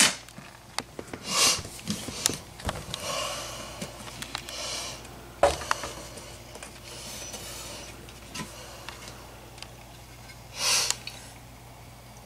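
A man breathing heavily after spinning a hand drill, several loud breaths a second or two apart, the last one near the end. A few light clicks and one sharper knock about five and a half seconds in.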